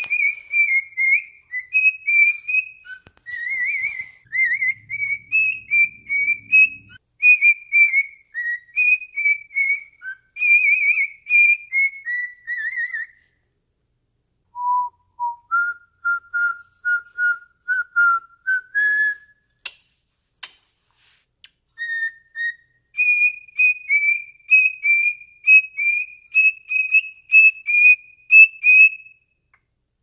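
Male cockatiel whistling its song, a rapid string of short warbling notes, broken by a pause about halfway, then a run of lower notes and a few sharp clicks before the high whistled phrase starts again. It is singing to a socked foot.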